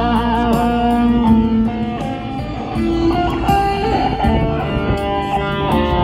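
Amplified electric guitar playing a lead melody of single sustained notes, with string bends and vibrato.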